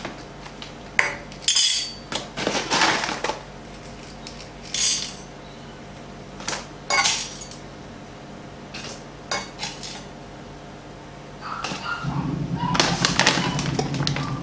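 Coffee beans being scooped from a bag and poured, rattling and clinking in short scattered bursts. About twelve seconds in, a steady low hum starts and runs under the rattle to the end.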